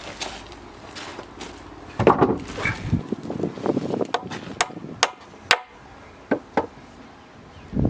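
Hammer blows on timber: a cluster of louder knocks about two seconds in, then single sharp strikes at uneven intervals.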